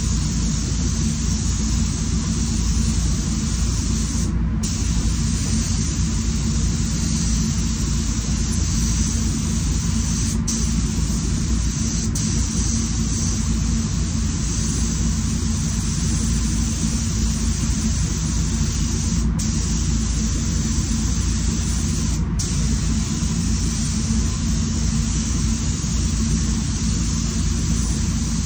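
Paint-booth ventilation fans running steadily, with the hiss of a SATA Jet 5000 RP air spray gun over them. The high hiss drops out for a moment about five times.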